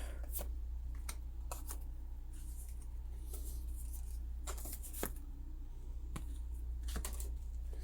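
Pokémon trading cards being handled and flipped through: scattered light clicks and soft slides of card on card, over a steady low hum.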